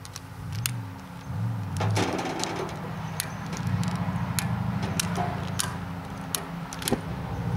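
Long barbecue lighter clicking several times at the burner of a Coleman white-gas camp stove that won't light properly. A low steady rumble sets in about two seconds in.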